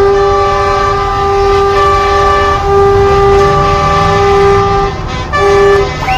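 Truck air horn sounding one long, steady blast, then a short second blast about five seconds in, over a low engine rumble.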